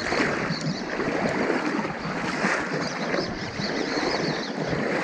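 Steady rushing of a flowing river over its bed, an even hiss of water with no distinct strikes.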